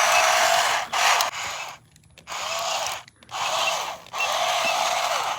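Toy remote-control car's small electric motor and plastic gears whirring, cutting out briefly about four times and starting again.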